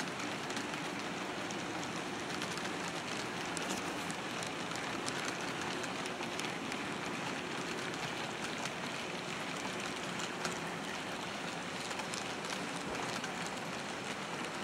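HO-scale model freight train rolling past: a steady rushing of many small metal wheels on the track, with rapid fine clicking throughout.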